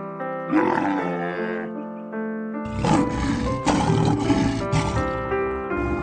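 Animal calls over background music: a short bellowing call about half a second in, then a longer rough, rumbling roar that starts about two and a half seconds in and lasts about two and a half seconds.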